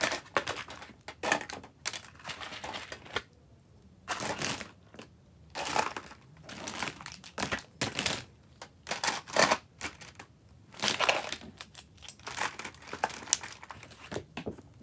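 Plastic pens and markers clicking and clattering against each other and into pen holders as they are picked up and sorted, in irregular clusters with short pauses between.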